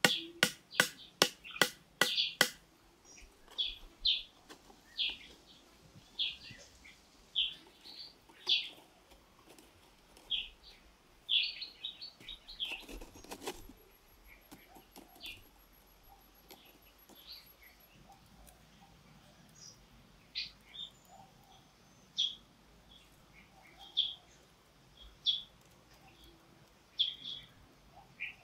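Wooden stakes being pounded into sandy ground with a stick: a run of sharp knocks, about three a second, over the first two and a half seconds. After that a bird chirps short calls every second or so.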